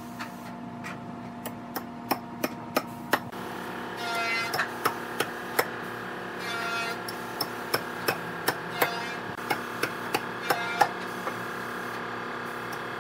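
Repeated sharp knocks on wood, a few a second in short runs, like hammer taps. Brief rasping scrapes come about four and six and a half seconds in, over a steady hum.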